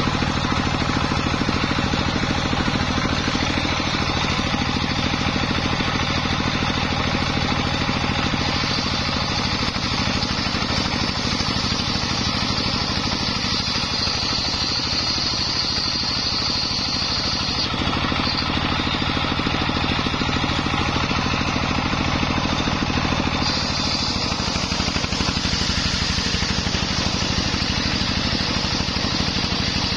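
A homemade belt-driven circular saw bench runs steadily while ripping a long coconut-wood plank. The high whine of the blade in the cut comes in about a third of the way through, drops out just past halfway, and returns near the end, over the steady hum of the motor driving it.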